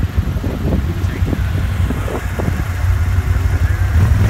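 Can-Am Outlander 1000 ATV's V-twin engine idling with a steady low rumble.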